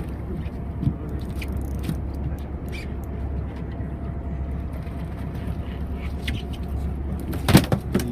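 Steady low rumble of a fishing boat's engine and hull at sea, with scattered light clicks and one sharp knock near the end.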